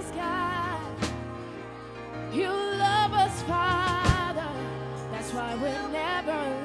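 Live gospel worship band playing: a woman sings long, wavering lines with heavy vibrato over held keyboard and bass notes, with drum and cymbal hits about a second in and again about four seconds in.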